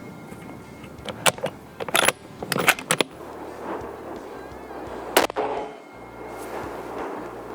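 Rifle fired once about five seconds in, a sharp report with a short echo, during a first zeroing at 25 yards. Before it comes a cluster of sharp clicks and knocks, and gusty wind runs underneath.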